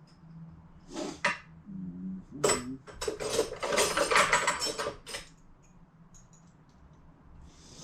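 Metal hand tools clinking and clattering against each other as someone rummages through them for one the right size for a nut. There are a couple of short rattles, then a longer run of clatter in the middle, and it dies down near the end.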